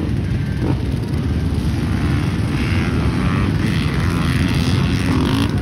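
Several off-road race motorcycle and ATV engines running together, a steady engine drone.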